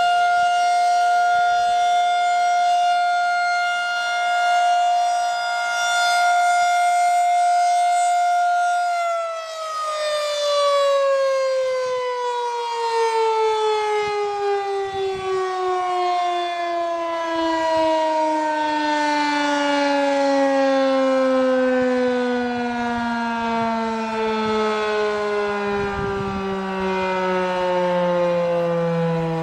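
Federal Signal 2001-SRN electromechanical outdoor warning siren sounding its steady alert tone. About nine seconds in, the siren shuts off and winds down, its pitch sliding steadily lower as the rotor coasts to a stop.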